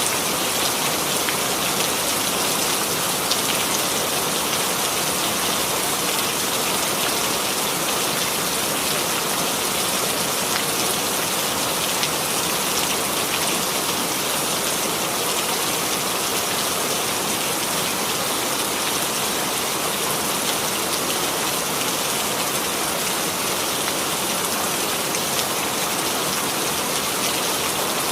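Steady rainfall, an even hiss of rain with scattered fine drop ticks on a surface.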